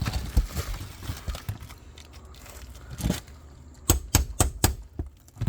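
Sharp knocks and scraping on asphalt roof shingles: a single knock about three seconds in, then four quick knocks in a row about a second later.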